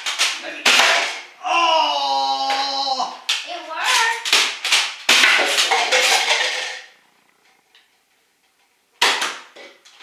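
Nerf blasters firing in quick succession, sharp clicks and snaps, as foam darts knock over stacked plastic cups. A child's long drawn-out shout rises over the shots about a second and a half in. Everything drops out for a second or two near the end before the clicks start again.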